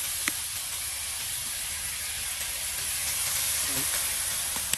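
Red chilies, garlic and chili paste sizzling steadily in hot oil in a frying pan, with a single sharp tick about a third of a second in and a shorter one near the end.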